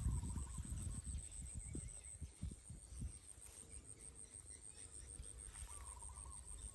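Outdoor ambience: a steady, high-pitched pulsing insect trill, with a short wavering bird call heard twice, at the start and near the end. Soft low rustling and thumps in the first three seconds, as of someone moving through tall grass.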